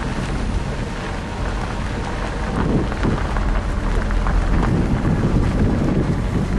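Steady low rumble of a running vehicle, mixed with wind buffeting the microphone.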